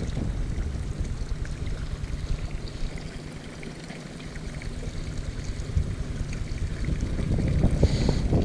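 Wind buffeting the microphone as a steady, gusting low rumble. It eases about halfway through and then builds again.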